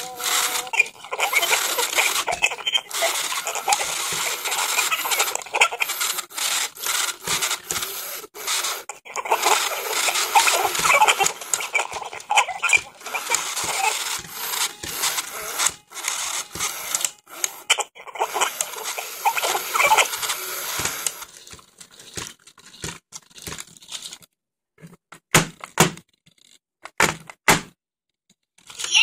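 Circuit-bent black Furby giving out a harsh, glitchy stream of crackling noise with warbling squeals, which thins out about 21 seconds in to scattered clicks and short bursts with near-silent gaps.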